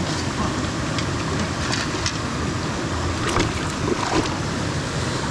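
Fast-flowing mountain stream rushing steadily over rocks. A few brief clicks come through in the middle.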